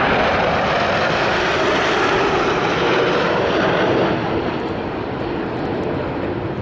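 Jet noise from the Patrouille de France's formation of Alpha Jets flying past: a loud, steady rushing noise that eases slightly after about four seconds.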